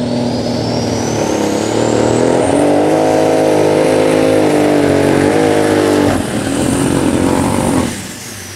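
Super Stock pulling tractor's turbocharged engine running at full throttle under load, with a high turbo whistle that climbs and then holds. Near the end the throttle is cut: the engine drops off sharply and the whistle falls away as the turbos spool down.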